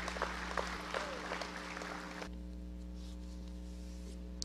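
Audience applauding, a haze of many separate claps, cut off abruptly about two seconds in, leaving a steady electrical hum.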